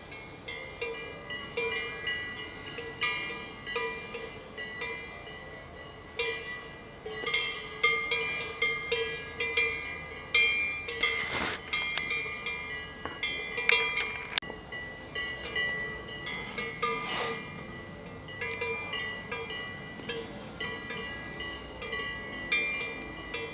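Cowbell clanking irregularly as the cow moves her head, the same ringing notes struck over and over, more often in the middle stretch.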